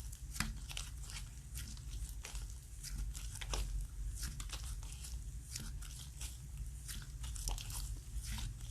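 Glue-based yogurt slime being worked by hand, giving a quick, irregular run of small sticky clicks and pops.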